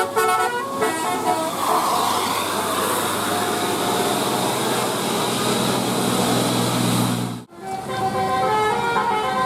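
Basuri telolet bus horn playing a quick stepping multi-note melody that ends about a second in, followed by several seconds of steady rushing noise. After a sudden break about seven and a half seconds in, another telolet horn melody starts.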